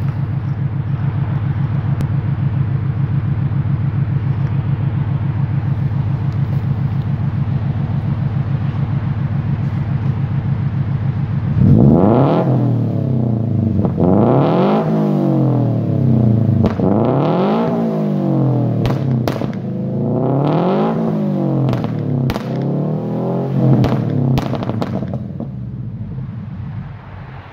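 Subaru BRZ rally car's FA20 flat-four, fitted with an unequal-length header and a cat-delete tuned exhaust, idling steadily. About halfway through it is blipped in a series of quick revs, each rising and falling. Sharp exhaust pops and bangs crack on the later lift-offs before it drops back toward idle.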